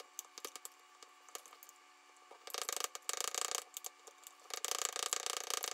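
Scraping and rattling on a glass mason jar of overnight oats: a few light clicks, then two dense rattling stretches about a second long each.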